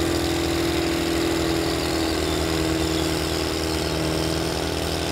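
Ford 7600 tractor's four-cylinder diesel engine running steadily under full load as it drags a pulling sled down the track. A steady whining tone over the engine note fades out about three seconds in.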